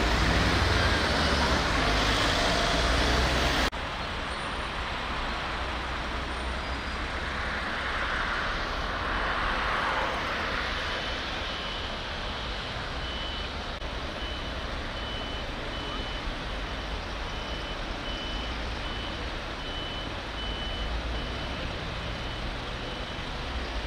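Steady vehicle and engine noise, with a vehicle's reversing beeper starting about halfway through: short high beeps, about one and a half a second.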